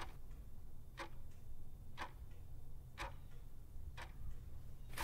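Clock ticking sound effect, one tick about every second over a low steady hum, standing for the baking time passing.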